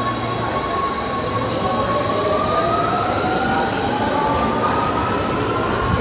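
Electric rail vehicle pulling away: its motor whine climbs steadily in pitch over a steady rumble.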